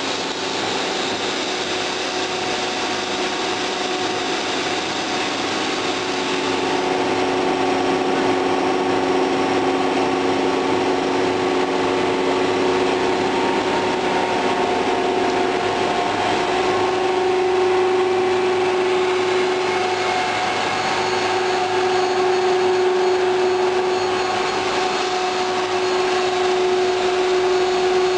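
HDPE pipe extrusion line running: a steady machine drone with a constant hum from its motors and pumps.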